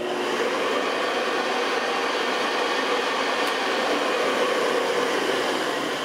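1973 Hoover Convertible U4009 upright vacuum switched on at the start and running steadily with its brush roll lifted off the floor. Its bearings are dry and have never been serviced, which makes it quite noisy.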